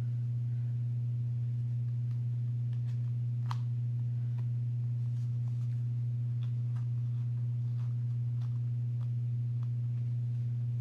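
A steady low hum throughout, with faint light rustles and clicks of card stock and ribbon being handled.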